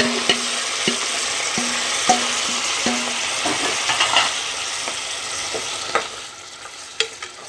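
Yogurt-marinated chicken sizzling in hot oil and butter in a pan, stirred with a spoon that clicks and scrapes against the pan several times. The sizzle grows fainter over the last few seconds.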